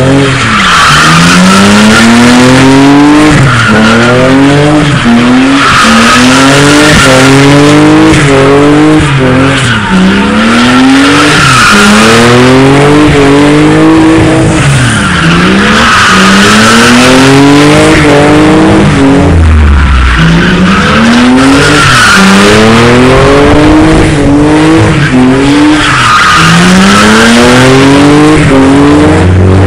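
A car doing donuts: the engine revs in repeated rising sweeps, dropping back and climbing again every couple of seconds, while the rear tyres screech continuously as they spin and smoke. Loud throughout.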